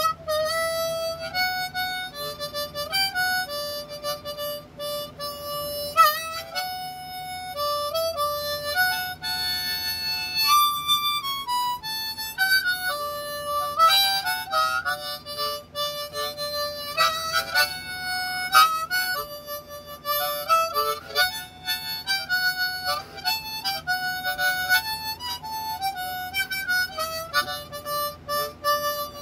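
Harmonica played solo, held cupped in both hands: a continuous melody of notes changing several times a second.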